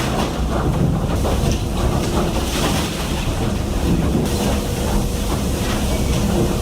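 A deep, steady rumbling roar from a recording of a reported mysterious ground or sky sound, with a faint steady hum above it. The uploader takes it for giant underground tunnel-boring machinery.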